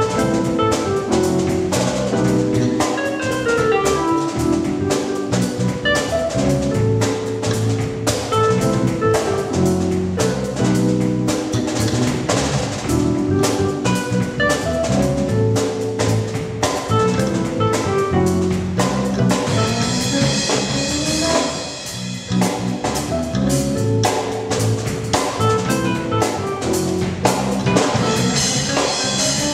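Band playing a gospel groove: drum kit with bass and sustained chords, the drums busy throughout, with a short cymbal-heavy break about two-thirds through.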